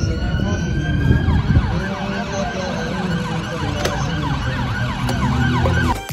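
An emergency vehicle's siren over busy road traffic, slowly rising in pitch at first and then sweeping rapidly up and down.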